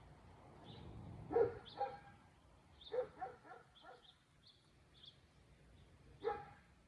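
A dog barking: two barks, then a quick run of about four, then one more near the end, with faint bird chirps in the background.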